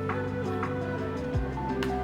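Background music: soft, steady held notes over a bass line, with light plucked or struck notes about twice a second.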